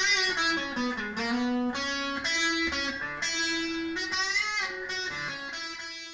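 A short electric-guitar phrase played back by a device at the press of a button: a run of plucked notes with pitch bends, ending on a held note.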